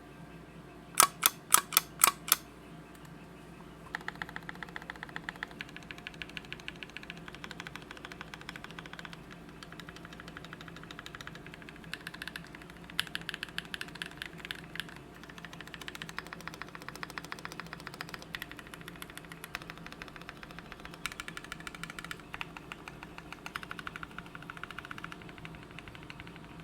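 Typing on a custom mechanical keyboard (KCL x Syryan Design EM8, aluminium plate, lubed PrimeKB Cobalt switches, GMK keycaps): fast, steady clacking of keystrokes in runs with short pauses. About a second in there are six much louder sharp clacks in quick succession, before the typing begins.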